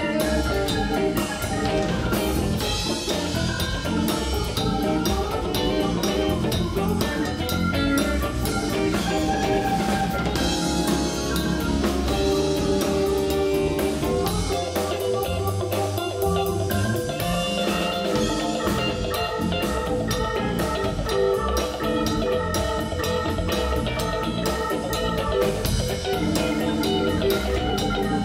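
Live soul-jazz band playing an instrumental groove: electric guitar, electric bass and keyboard over a busy drum-kit beat with constant cymbal strokes.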